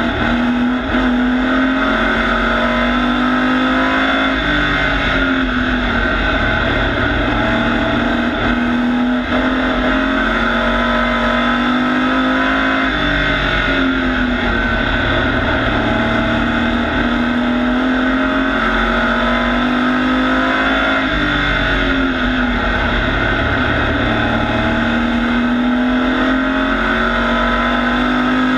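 Race truck's engine heard from inside the cab at racing speed on an oval. It holds high revs with its pitch creeping up along each straight, then dips briefly and climbs back as the driver lifts for a corner, about every eight or nine seconds: one rise and dip per lap.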